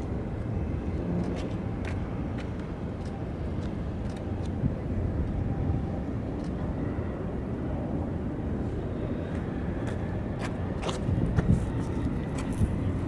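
Steady low rumble of distant engines, with a few faint clicks and ticks.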